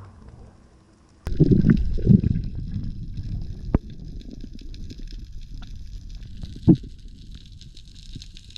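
Underwater water noise heard through an action camera's housing: a loud rumbling and gurgling starts suddenly about a second in, then settles into a steady rumble with a high hiss, broken by a sharp click near four seconds and a short thump near seven seconds.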